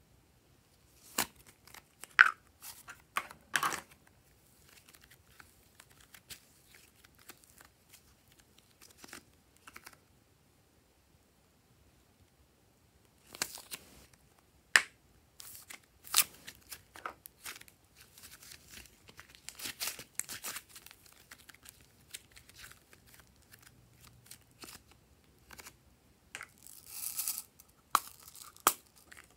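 Small hard-plastic slime containers being handled and opened by hand: scattered sharp plastic clicks and snaps with soft rustling and scraping between them, and a quiet pause midway.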